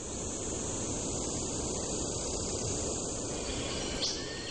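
Steady rushing background noise with no clear pitch, with a short rising high chirp near the end.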